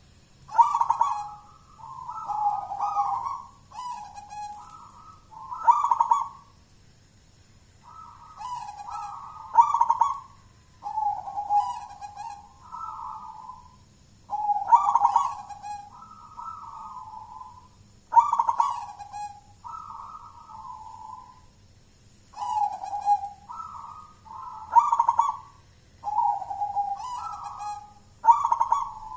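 Zebra dove cooing: repeated phrases of rolling coo notes, each opening with a louder note, about every three to five seconds.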